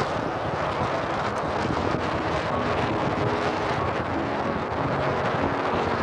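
Steady wind buffeting the microphone over the running and road noise of a moving vehicle.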